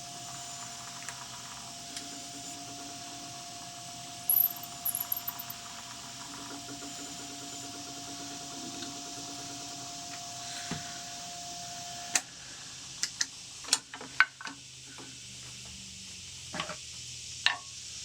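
Wood lathe running slowly while a hand-held drill bit bores into a spinning pear-wood tool handle, a steady hum with a held tone and a few sharp clicks about four seconds in. The lathe cuts off about twelve seconds in, and several light knocks and clicks of wood and metal being handled follow.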